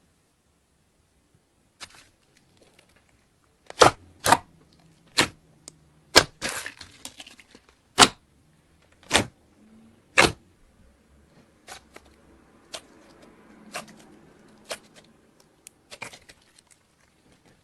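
Slime being worked by hand, trapped air popping in sharp snaps. The loudest pops come in a burst of about seven through the middle, with fainter clicks and crackles after.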